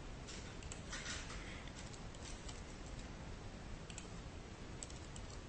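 Faint, scattered clicks of a computer keyboard and mouse during code editing, over a steady low hiss.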